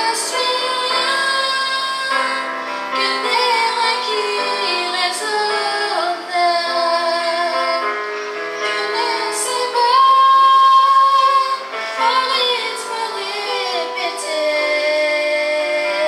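A woman singing into a microphone over live keyboard and electric guitar accompaniment. She holds one long high note about ten seconds in.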